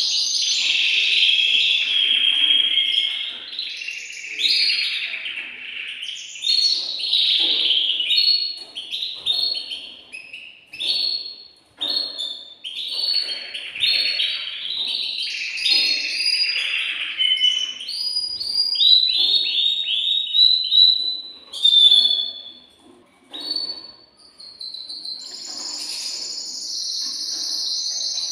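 Male domestic canary singing a long, varied song of rapid trills and runs of quickly repeated notes, with brief breaks about twelve seconds in and again near twenty-three seconds. Near the end it holds one long, steady trill.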